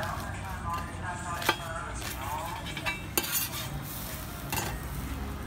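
Metal spatula scraping and knocking on an iron griddle as a jian bing crepe is folded and cut in half, with two sharp clinks of metal on metal.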